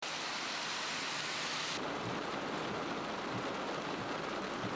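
Heavy rain pouring down, a steady dense hiss. A little under two seconds in, the sound abruptly turns duller.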